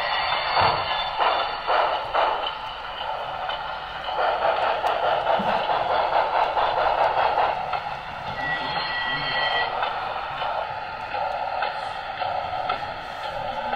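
HO-scale model train running on the layout, its sound played through a small onboard speaker: a steady running sound with no bass, a few clicks near the start, and a short steady tone about eight seconds in.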